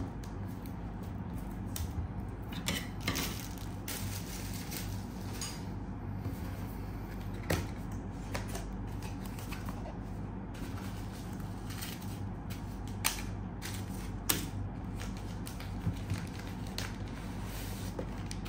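Cardboard product box being unboxed by hand. Fingernails pick at the seal, the lid is lifted and a wrapped inner pack is pulled out, giving scattered clicks, taps and scrapes of cardboard and wrapping over a steady low hum.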